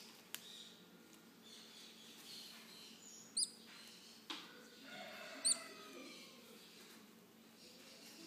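Baby green-cheeked conures chirping: two short, sharp, high chirps about two seconds apart, with fainter sliding calls in between.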